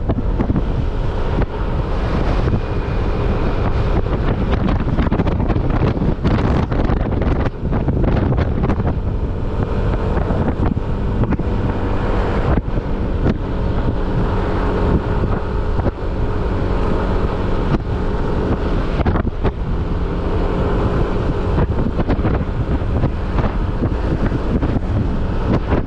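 Heavy wind buffeting on the microphone of a moving motorcycle, a constant rumble, with the bike's engine giving a faint steady hum underneath.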